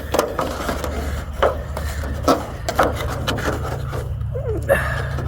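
A utensil scraping and knocking in a cooking pan, cutting into and scooping out freshly baked brownies, in irregular short strokes over a steady low hum.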